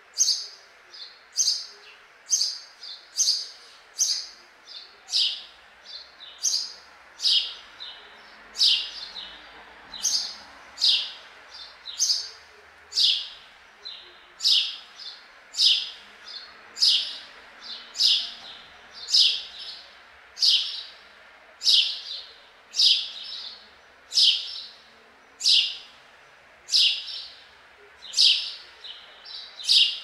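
A sparrow chirping: short, sharp chirps about once a second, each dropping quickly in pitch, now and then doubled into a quick pair.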